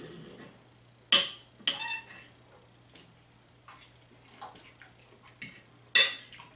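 Cutlery clinking and scraping on a plate, with sharp ringing clinks about a second in, again shortly after, and a loud one near the end, with lighter taps and scrapes between.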